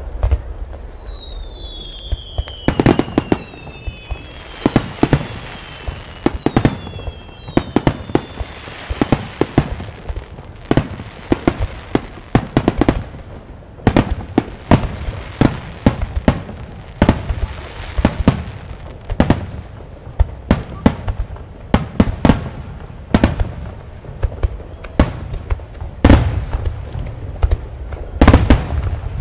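Large starmine fireworks display (a Super Vesuvius barrage): a dense, irregular run of shell bursts and bangs, several a second, with echoing booms. Several falling whistles sound together in the first nine seconds or so.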